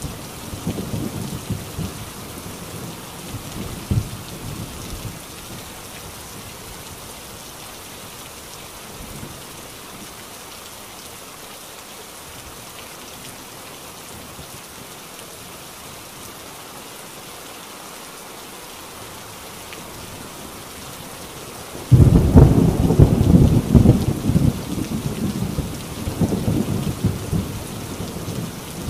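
Heavy rain drumming steadily on a tin roof, with thunder. A low rumble dies away over the first few seconds. After a stretch of rain alone, a sudden loud thunderclap comes about three-quarters of the way through and rolls on for several seconds.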